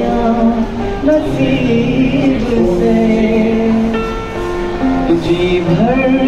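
A man singing into a microphone while playing an electric guitar: a live, amplified song with sustained sung notes over the guitar.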